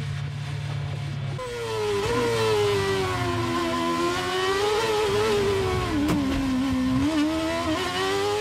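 Onboard sound of a Williams Formula 1 car's V8 engine: after a low steady drone cuts off about a second and a half in, the engine's pitch falls, picks up briefly, drops again and then climbs near the end as the revs change. A short sharp click comes about six seconds in.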